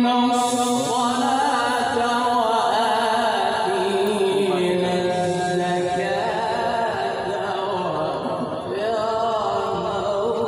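A man reciting the Quran in the melodic chanted style (tilawat), holding long notes that waver and glide in ornamented runs, his voice amplified through a microphone.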